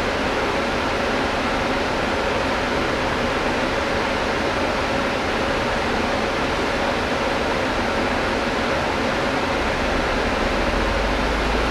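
Steady cabin noise on the upper deck of a Volvo B9TL double-decker bus: its engine and air conditioning running, with a faint steady hum over a wash of noise. About ten seconds in, a deep engine rumble grows stronger.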